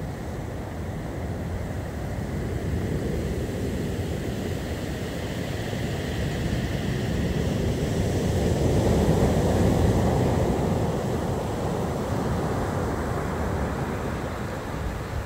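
Rough storm surf breaking and washing up the beach, a continuous heavy rush of water. It swells to its loudest about nine to ten seconds in as a big wave breaks, then eases.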